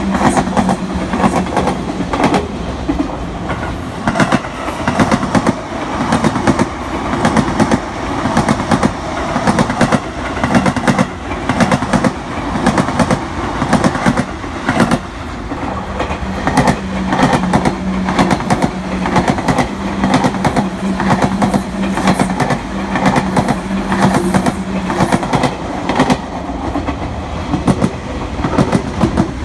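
Train wheels clacking over rail joints: a steady run of clickety-clack as the cars roll past, with a low steady hum under it at the start and again in the second half.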